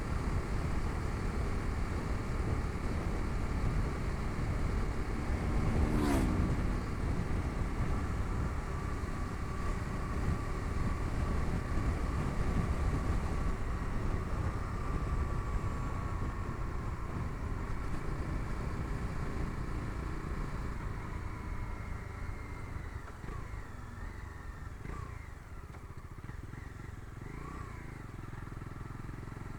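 Bajaj Dominar 250's single-cylinder engine running under way, with road and wind rush. There is a sharp click about six seconds in, followed by a falling engine note, and the engine grows quieter in the last few seconds.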